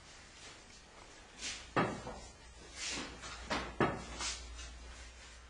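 Two sharp knocks about two seconds apart, with softer scuffs and rustles between them, over a faint low hum.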